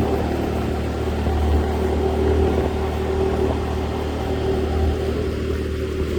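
Steady engine hum and road noise of a vehicle on the move, with no change in speed.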